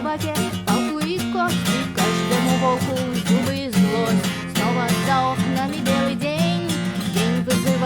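Acoustic guitar strummed in a steady rhythm, with a wordless melody gliding above the chords.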